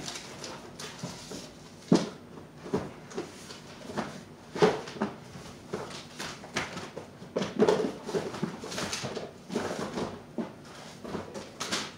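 Rummaging through a storage tote: irregular knocks, clatters and rustles as items are moved and dug through.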